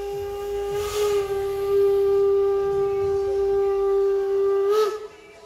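Narrow-gauge steam locomotive's whistle blowing one long, steady note, with a rush of steam about a second in. The note bends in pitch and cuts off near the end.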